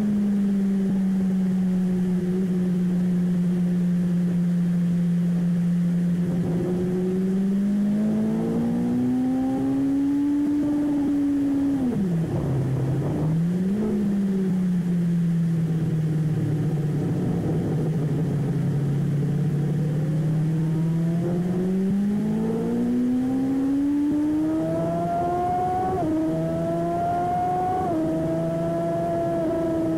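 Vehicle engine running hard on a race track, its pitch climbing and falling with throttle and speed. It climbs over a few seconds, drops sharply about twelve seconds in and recovers, holds low and even, then climbs again with two quick jumps in pitch near the end.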